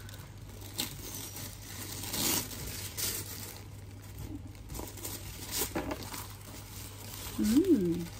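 Tissue paper rustling and crinkling in irregular bursts as it is pulled back and unfolded from inside a shoe box. A short wavering hum of a voice comes near the end.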